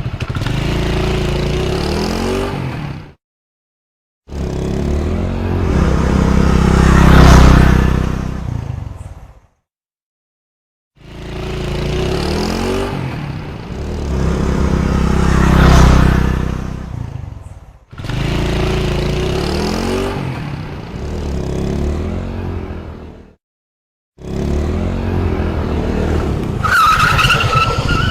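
A string of separate Honda motorcycle engine clips, divided by brief silences: the engine running steadily, and two pass-bys that grow louder to a peak and then fade away.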